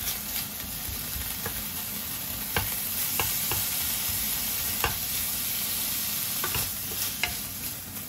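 Frozen pork slices sizzling in sesame oil in a nonstick frying pan while a wooden spatula stirs and breaks them apart, with irregular sharp taps of the spatula against the pan.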